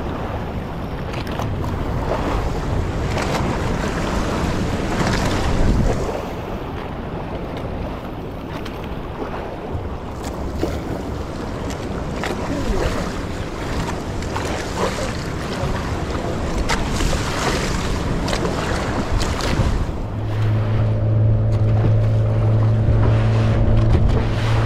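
Wind buffeting the microphone and choppy waves slapping around a small outrigger boat, with scattered splashes. About twenty seconds in, a steady low hum sets in under the wind.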